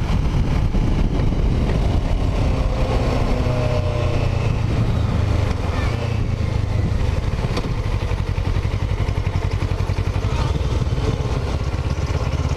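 2006 Kawasaki Ninja 650R's parallel-twin engine running steadily while the bike is ridden, dropping slightly in level about halfway through.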